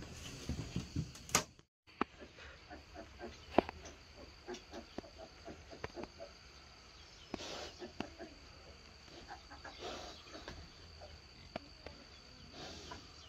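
Sows and newborn American Guinea Hog piglets making short, soft grunts and squeaks while the piglets nurse, scattered irregularly, over a faint steady insect hum. The sound drops out completely for a moment a little before two seconds in.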